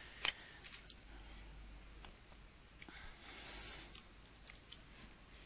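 A few faint computer mouse clicks, one sharper click near the start, over quiet room tone.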